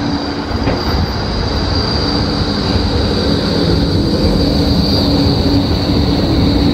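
Melbourne E-class low-floor tram rolling slowly past at close range as it pulls into a stop, with the noise of steel wheels on rail. Over it sit a steady low hum and a high steady whine, the high one dipping slightly in pitch near the end.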